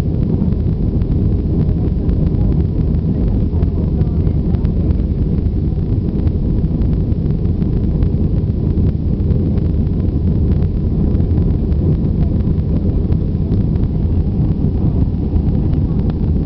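Steady low roar of an Airbus A320-200's engines and rushing air, heard from inside the passenger cabin in flight.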